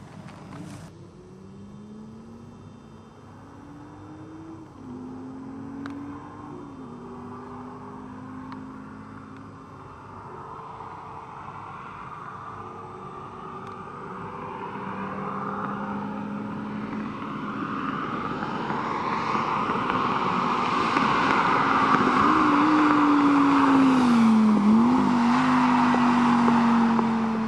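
Lamborghini Gallardo's V10 engine and exhaust running under acceleration, its pitch climbing and dropping with gear changes. It grows steadily louder and is loudest over the last few seconds.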